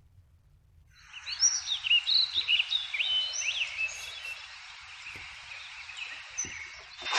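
Birds chirping and whistling, many short calls sweeping up and down in pitch, over a steady background hiss of outdoor ambience. It starts about a second in, and the loudest calls come in the first couple of seconds.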